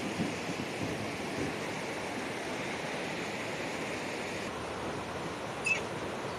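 Fast, muddy mountain river rushing over boulders and rapids, a steady rush of water. A brief high chirp near the end.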